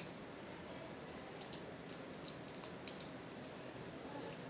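Faint scraping and a few light clicks of a steel spoon against a stainless-steel tiffin box as crumbly kalakand is pressed down into it.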